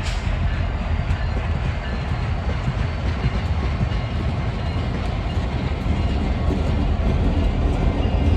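Train moving on the rails: a steady low rumble with wheel-on-rail noise, growing slightly louder near the end.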